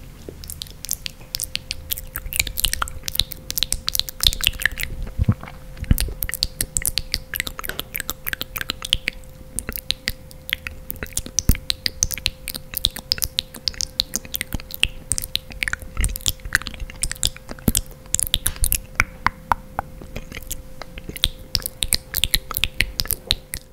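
Close-miked ASMR mouth sounds: a dense, irregular run of quick wet clicks and smacks, over a faint steady hum.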